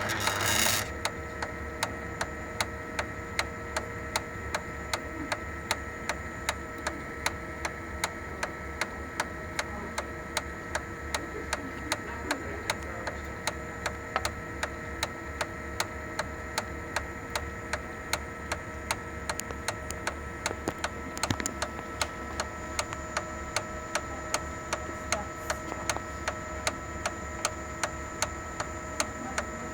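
Sharp MX-6240/MX-7040 copier running with a sharp, regular ticking, about two ticks a second, from the fuser drive gear area over the machine's steady hum. The ticking is the sign of worn bearings and gears in the fuser drive gear cluster, which needs replacing.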